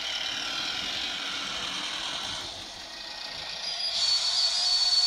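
Model Renault VH railcar (Mistral, HO scale, DCC sound) running on track: the sound decoder's diesel engine sound through its small speaker, mixed with the model's motor and wheel noise. It grows louder near the end, where a steady high whine joins in.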